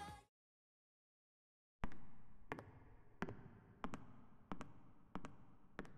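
Footsteps on a hard floor, echoing as in a tunnel. After a moment of silence they come at an even walking pace, about three steps every two seconds, each a sharp click with a short ringing tail.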